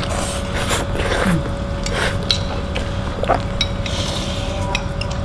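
Mukbang eating sounds: noodles slurped from a bowl and metal spoons clicking now and then against ceramic bowls, over a steady low hum.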